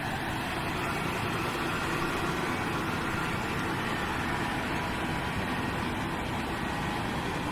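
CLAAS Lexion 8800 combine harvester running steadily as it harvests winter barley: a constant engine and threshing din.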